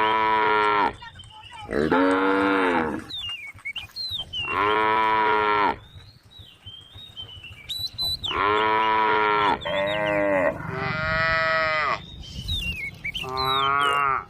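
Cows mooing: about seven long, loud moos one after another, some following close on each other.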